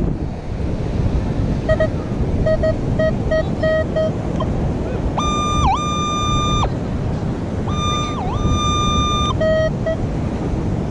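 Metal detector sounding off on a buried target: a series of short low beeps, then two long higher tones that each dip briefly in pitch, then a few more short low beeps near the end. Steady wind and surf noise runs underneath.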